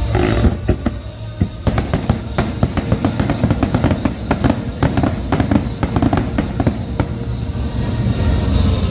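Fireworks going off in a rapid string of sharp bangs and crackles, starting about two seconds in and running for several seconds, over a pyromusical soundtrack with a heavy bass.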